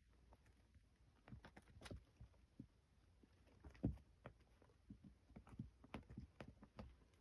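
Kittens playing: faint, irregular soft taps, scuffs and pats as they bat at and pounce on a hat, with one firmer thump about four seconds in.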